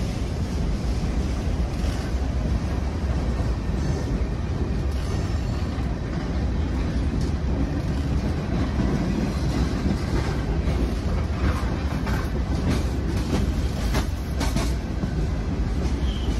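Long freight train rolling past, its cars making a steady low rumble, with a run of sharp wheel clacks in the later part.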